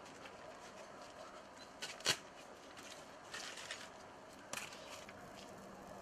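A wood fire being lit in a boiler's firebox: a few sharp snaps and rustles from dry brush kindling, the loudest snap about two seconds in, over a faint steady background.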